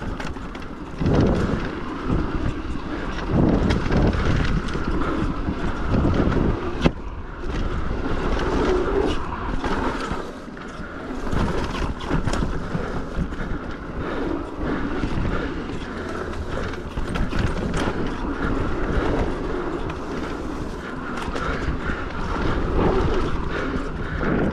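Pivot Shuttle electric mountain bike descending a dirt downhill trail at speed: wind buffeting the microphone, tyres rolling over dirt, and a steady run of rattles and knocks from the bike, with one sharp knock about seven seconds in.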